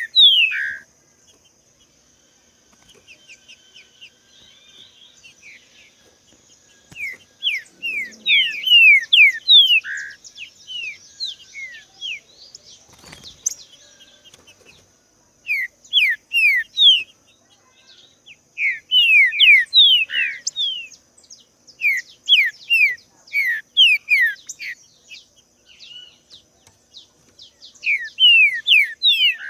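Green-winged saltator (trinca-ferro) singing: phrases of loud, clear whistled notes, each note sliding downward, delivered in short bursts about every few seconds with pauses between.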